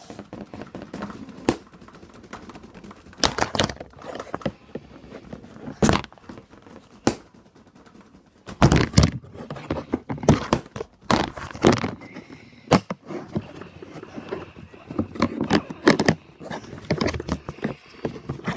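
Noise from a drawer: irregular knocks and thuds with scraping and rattling between them, heaviest about nine to twelve seconds in and again around sixteen seconds in.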